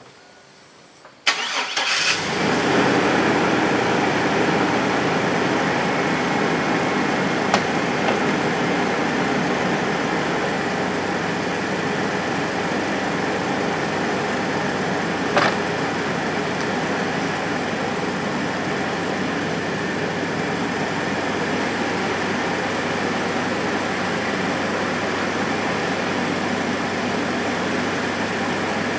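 Chevrolet S10 pickup engine cranked and firing up from cold after sitting two days, catching about a second in and then idling steadily. A couple of short sharp clicks sound over the idle.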